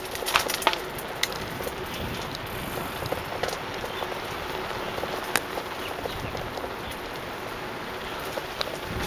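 Bicycle rolling fast along a paved path: a steady hiss of tyre and riding noise, with scattered sharp clicks and rattles from the bike over the bumps.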